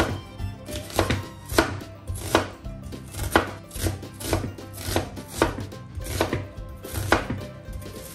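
Chef's knife chopping an onion on a wooden cutting board, each cut ending in a sharp knock of the blade on the wood, about once a second.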